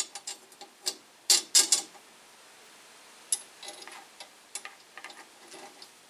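Small bolt and aluminium lug bracket being handled and fitted on a drum shell: sharp metallic clicks and taps, several in quick succession in the first two seconds, one more a little past three seconds, then lighter ticks.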